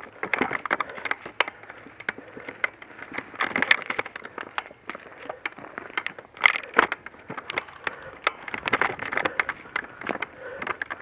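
Footsteps crunching and rustling through dry brush and undergrowth, with irregular crackling snaps of twigs and brush throughout.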